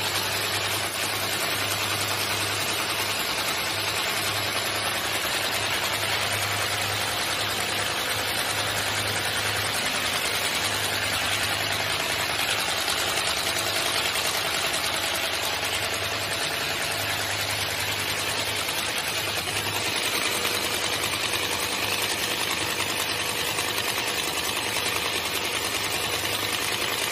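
Pharmaceutical leaflet buckle-plate folding machine running at speed, about 220 metres per minute: a steady mechanical whirr of rollers and paper with a constant low hum.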